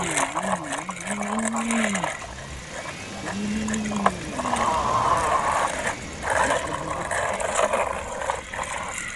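Plastic wheels of a toy dump truck grinding and rolling over wet, gritty concrete in rough stretches, pushed by hand over live catfish. A few low, wavering voice-like tones rise and fall in arches during the first half.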